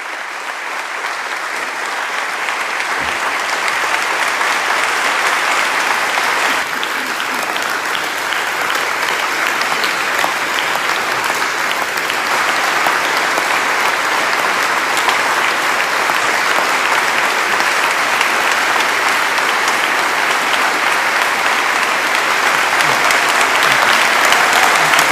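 Audience applauding, the clapping swelling over the first few seconds and then going on steadily.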